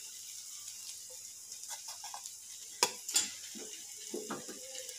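A steel spatula scrapes and taps in a metal pan as cooked cluster beans are served onto a plate, with two sharp clicks about three seconds in. A faint steady hiss runs underneath.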